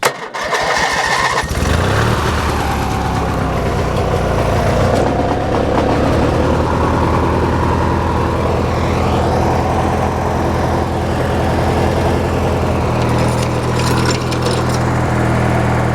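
Hechinger by MTD riding lawn tractor's engine cranked on the starter with the choke on. It catches after about a second and a half and runs steadily, and its note grows stronger and deeper about thirteen seconds in.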